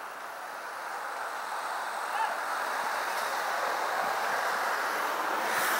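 Road traffic noise: a steady hiss of passing cars that grows louder over the first couple of seconds, then holds.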